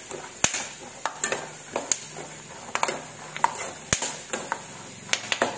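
Steel spoon stirring boiled peanuts in hot oil in a stainless-steel kadai, giving irregular clinks and scrapes against the pan over a faint sizzle of frying.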